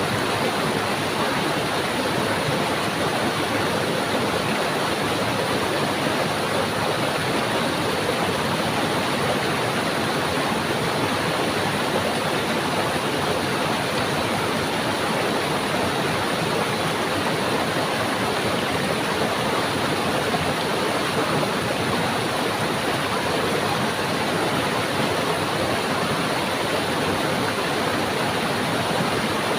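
Stream water rushing steadily, a constant even hiss of flowing water with no breaks.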